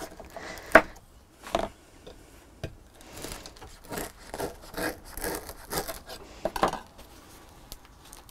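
Knife sawing through a French bread stick on a wooden chopping board, in short strokes about two a second, after a sharp knock on the board about a second in.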